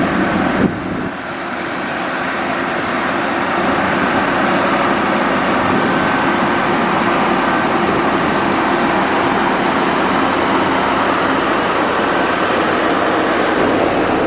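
Motor grader's diesel engine running steadily. The sound breaks abruptly about a second in, then carries on evenly.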